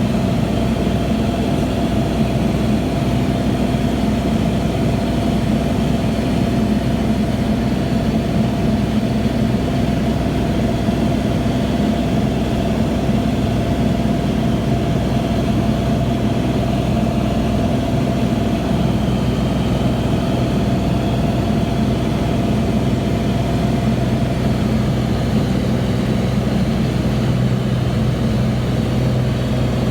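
An engine running steadily at idle, a constant hum with an even wash of noise underneath.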